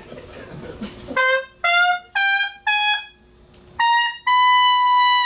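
A trumpet plays a short rising fanfare: four quick notes climbing in pitch, a pause, then one short note and a long held high note that cuts off suddenly.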